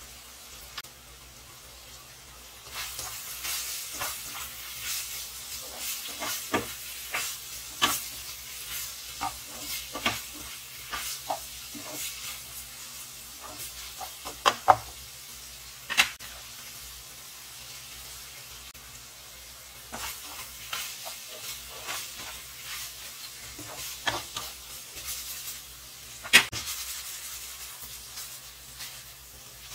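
Ground pork and chopped vegetables sizzling in a nonstick frying pan while being stirred with a spatula, which scrapes and clicks against the pan. The sizzling starts about three seconds in, and the sharpest clicks come about halfway and near the end.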